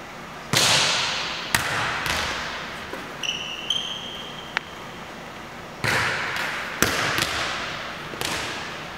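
A volleyball being hit and passed on the forearms: two runs of sharp slaps, one starting about half a second in and another about six seconds in, each ringing on in a long gym echo. A couple of short squeaks come a little past three seconds.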